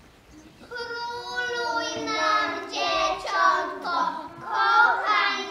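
Young preschool children singing a Christmas carol, starting under a second in after a short quiet moment.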